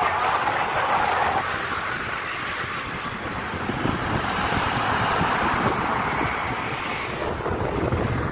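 Wind buffeting the microphone of a moving bicycle, over a steady rush of road and traffic noise.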